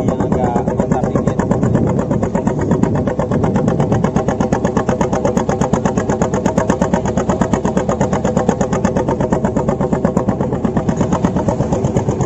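Small engine aboard a fishing boat running steadily at a constant speed, with a fast, even chugging pulse.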